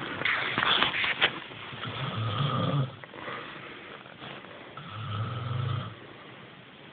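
Snoring: two slow, low, rattling snores, each just under a second long and about three seconds apart. A few sharp clicks or rustles come in the first second.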